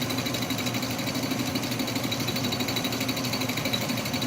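Roughing end mill cutting metal on an Atlas lathe fitted with a shop-made milling attachment: a steady, rapid, really rattling chatter over the running machine. The cutter is deflecting about 2 thou under the cut.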